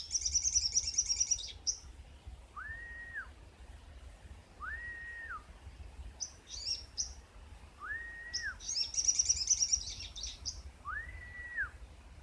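Young wild-caught sogon bird calling: repeated clear whistled notes, each rising, holding and dropping, about every two to three seconds, mixed with bursts of high rapid chattering trills.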